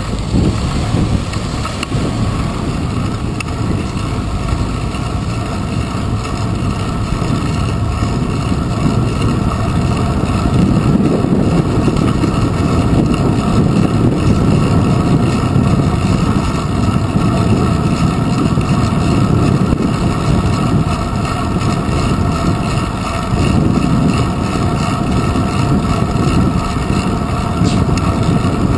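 Steady rush of wind and road rumble picked up by a handlebar-mounted GoPro Hero 2 on a moving bicycle, with city traffic around it.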